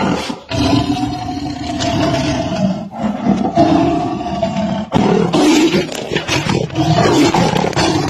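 A big cat roaring and growling in long, loud calls, with short breaks about half a second, three seconds and five seconds in.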